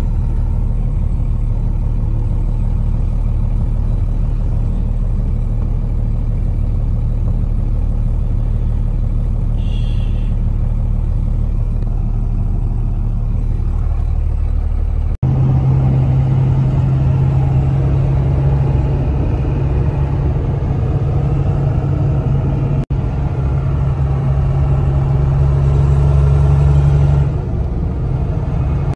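Pickup truck's engine and road noise heard from inside the cab while driving, a steady low drone. About halfway in it cuts to a louder stretch with a strong, steady low hum.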